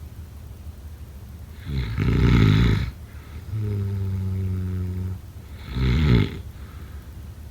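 A person snoring: a loud rattling snore about two seconds in and a shorter one near six seconds, with a steady low hum of breath lasting about a second and a half between them.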